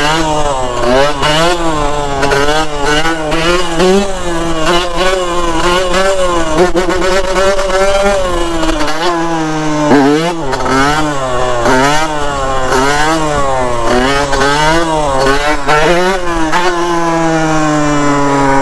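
Dirt bike engine revving up and down again and again under the rider's throttle, about once a second, then winding down in one long falling pitch near the end.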